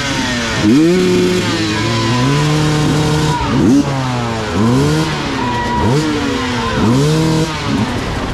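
Several motorcycle engines revving, each sweeping up in pitch and dropping back again and again, with the engines overlapping.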